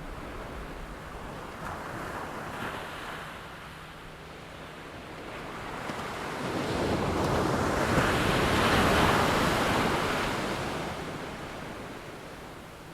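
Surf washing in: a rushing noise that builds over a few seconds, peaks about two-thirds of the way in, then slowly dies away.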